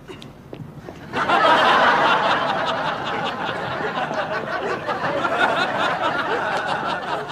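Studio audience laughing, breaking out about a second in and carrying on steadily.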